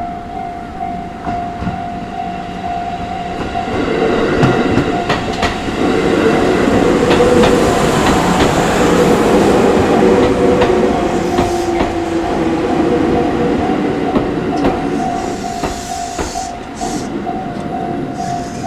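Japanese level-crossing warning bell ringing in fast repeated dings while a Chichibu Railway train passes over the crossing; the train's rumble and wheel clicks over the rail joints swell about four seconds in and ease off toward the end.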